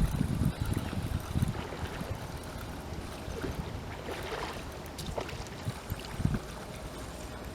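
Wind buffeting the microphone with water rushing and lapping at the riverbank. It is loudest in the first second or so, then settles into a steadier, quieter rush with a few small clicks.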